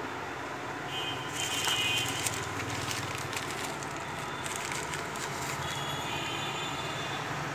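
Clear plastic packaging crackling as it is handled. It starts about a second in and lasts for about three seconds, over a steady background rumble.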